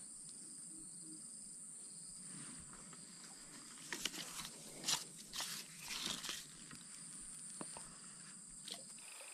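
Steady high-pitched buzzing of swamp insects, with a cluster of rustling and crackling noises in the middle. The insect sound cuts off abruptly near the end.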